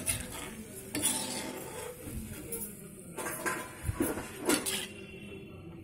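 Stainless-steel slotted spoon scraping and clinking against a steel mixing bowl while chicken pieces and crisp fried onions are stirred together, with several sharp clinks spread through.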